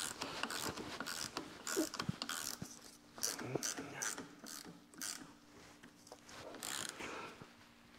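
Hand socket ratchet clicking in quick runs, then more sparsely, as bolts on a diesel vacuum pump's bracket are tightened down.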